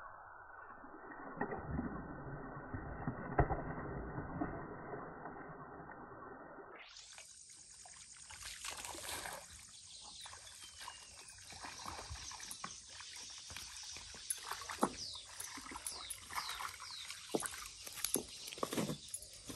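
A hooked wallago catfish thrashing and splashing at the water's surface as it is played on a spinning rod. About seven seconds in the sound turns clearer, with many short, sharp splashes and clicks.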